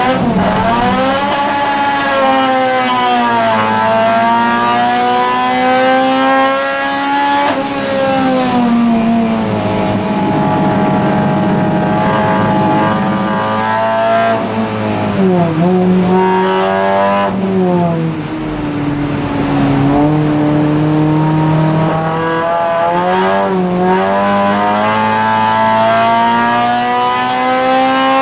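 Honda Civic Type R FN2 race car's four-cylinder engine heard from inside the cabin under race load. The revs climb through the gears with sudden dips at each upshift, then fall away on braking and downshifts for corners several times and pick up again.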